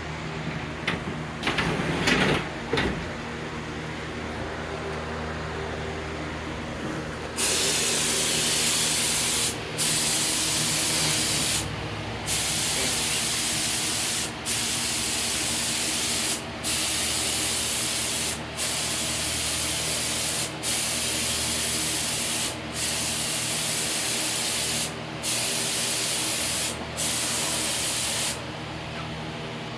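Paint being sprayed onto a garage door: a loud hiss of spray in about ten passes of roughly two seconds each with short breaks between, starting about seven seconds in, over a steady hum. A few knocks and rattles near the start.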